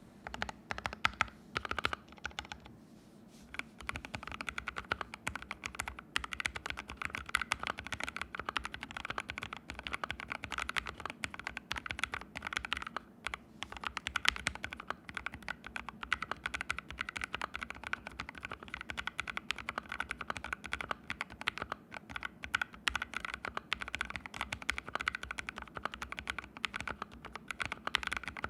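Fast, continuous typing on an ABKO AR61 mechanical keyboard with fully lubed Haimu Sea Salt switches, set directly on a hard floor without a desk mat. There is a short pause about three seconds in, then steady typing resumes.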